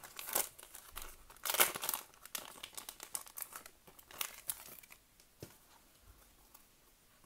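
A Pokémon card booster pack's foil wrapper being torn open and crinkled by hand: dense crackling rustles in the first two seconds, then lighter, sparser rustling as the cards come out, dying away after about five seconds.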